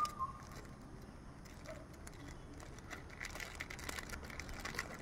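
Faint crinkling and light clicks of a small plastic screen-protector pack being handled in the fingers, the clicks coming more often in the second half.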